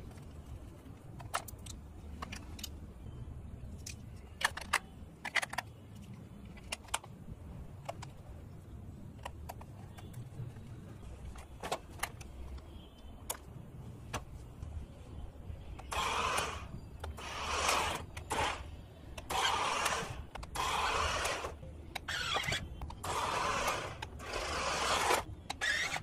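Battery-powered RC stunt car driving on concrete in short bursts, about eight of them over the last ten seconds, its motors and tyres making a noisy rush each time the remote is worked. Before that, scattered sharp plastic clicks as the car and remote are handled.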